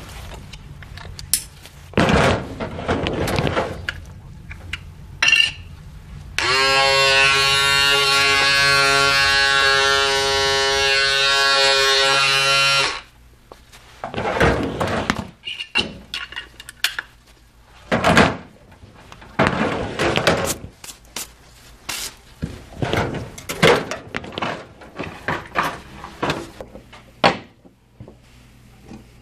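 Electric hair clippers switched on and buzzing steadily for about six seconds, then cut off. Before and after, knocks and clatter of clippers and tools being handled and set down in a metal tool-chest drawer.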